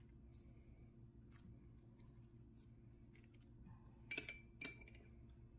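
Near silence with a faint low hum, broken about four seconds in by two short clinks of a utensil against a small glass bowl of marinade, the first a quick double tap.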